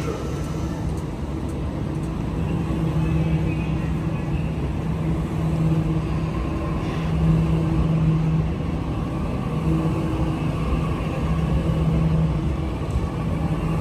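Sydney Trains Waratah B-set electric double-deck train pulling out of the platform and passing close by. It gives a steady electric hum over a low rumble of the carriages rolling past.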